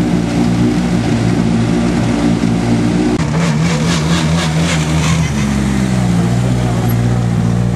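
Rally car engines idling steadily. From about three seconds in, a Mitsubishi Lancer WRC rolls past at low speed with its engine running, giving a rapid crackle for about two seconds before its note rises a little.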